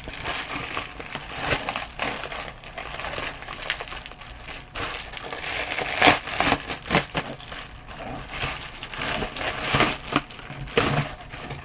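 Packaging being torn and crumpled by hand: irregular crinkling, crackling and tearing as a hard-to-open mail package is worked open, loudest about six seconds in.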